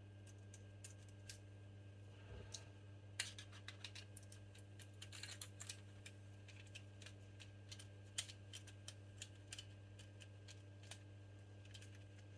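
Faint, irregular small clicks and ticks of a small screw being fitted and driven into a padlock's plate with a screwdriver, starting about three seconds in.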